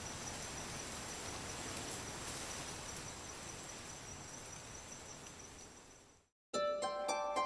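Night forest ambience: insects chirring steadily with a thin, pulsing high tone, fading out about six seconds in. Plucked-string music, harp-like, starts abruptly near the end.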